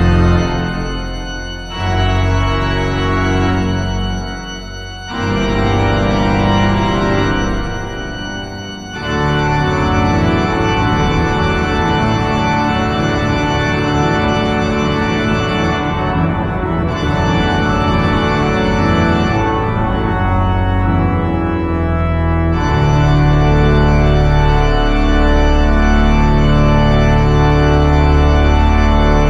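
Organ music: held chords in three short phrases with brief breaths between them, then a continuous passage whose bass grows fuller about two-thirds of the way through.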